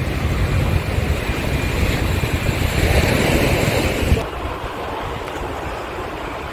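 Wind buffeting the microphone over sea waves washing against the rock boulders of a seawall. About four seconds in the sound drops abruptly to a quieter steady rush.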